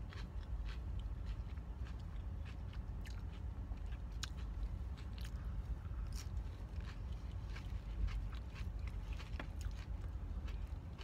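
A person chewing and biting food close to the microphone, with many short irregular crunches and mouth clicks over a steady low hum.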